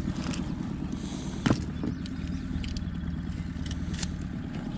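Outboard motor idling steadily, with a sharp knock about a second and a half in and a couple of lighter clicks near the end.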